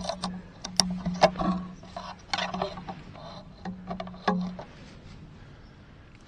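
Clicks, knocks and rustling of a compound bow and arrow being handled and an arrow nocked, over the first four or five seconds, then quieter.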